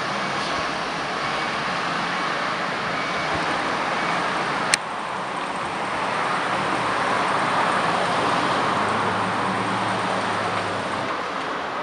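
Street traffic noise with a fire engine pumper's diesel engine growing louder as it approaches without a siren, a car passing with it. A sharp click about five seconds in, where the recording jumps.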